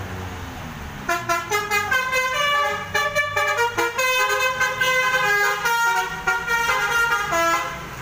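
Telolet basuri multi-tone bus horn playing a quick tune of many short, stepped notes, starting about a second in and stopping just before the end, over the low running of the coach's engine.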